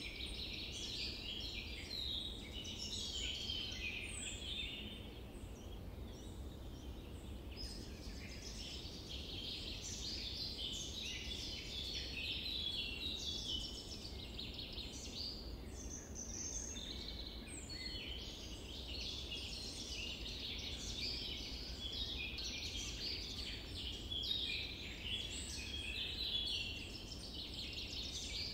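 Many small birds chirping and twittering over one another without a break, with a steady low rumble underneath.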